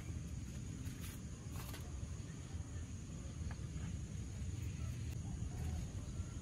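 Outdoor countryside ambience: a steady high-pitched insect drone over a low rumble, with a few faint clicks.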